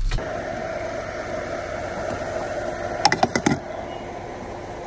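A steady mechanical hum, and about three seconds in a quick run of sharp clicks and clunks from a van's side-door latch and handle being worked.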